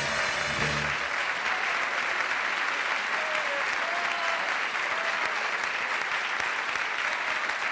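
Studio audience applauding steadily, with the band's final chord dying away in the first second.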